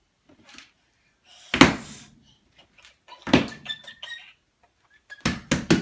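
A series of loud thumps: one about a second and a half in, another near the middle, and three quick ones near the end.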